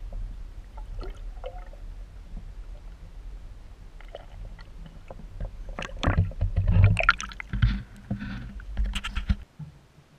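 Water sloshing and gurgling heard muffled through a camera held underwater, with a steady low rumble and scattered knocks. Louder splashy bursts come about six to seven seconds in and again near nine seconds, then the sound cuts off sharply.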